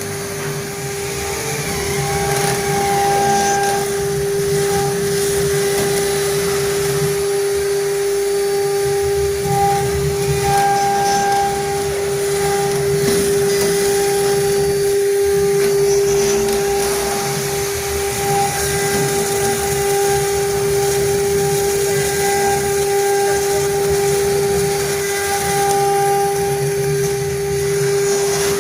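Stone CNC router's spindle engraving stone: a steady whine, with cutting noise that rises and falls.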